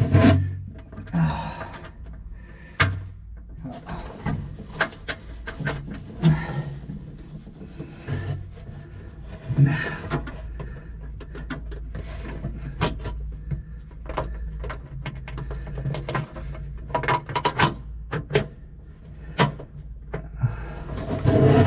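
Scattered small clicks, taps and knocks of hands working metal fittings and hardware in a cramped space, fitting an aircraft fuel shutoff valve by feel.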